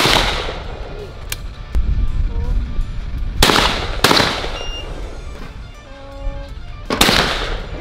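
Four shotgun shots at clay targets, each sharp with a ringing tail: one at the start, a quick pair about two-thirds of a second apart in the middle, and one near the end.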